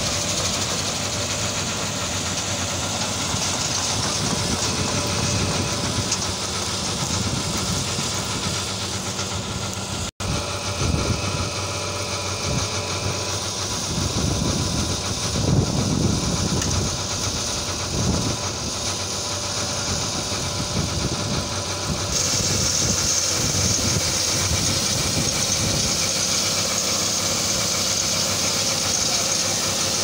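New Holland combine harvester running: a steady engine and machinery drone. A brighter hiss joins about two-thirds of the way in.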